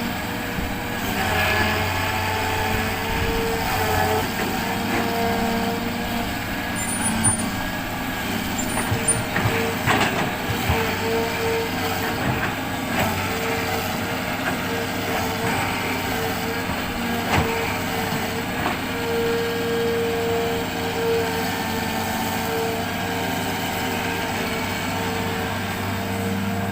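A Hitachi excavator's diesel engine and hydraulics run steadily as it loads sand onto a truck, with a constant whine over the engine and a few sharp knocks.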